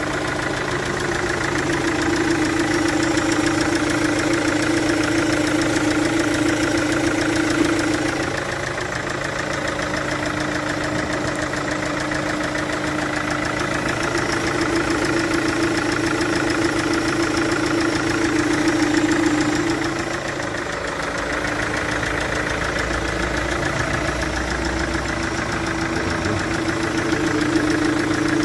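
Chevrolet VCDI diesel engine idling, with cylinder compression leaking past a failed injector seal. Its level swells a little a few times.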